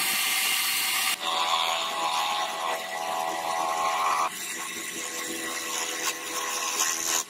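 Small lathe running with a wooden knife-handle blank spinning on it: sandpaper hisses against the turning wood for about the first second, then a chisel tip scrapes grooves into it over the steady whine of the motor.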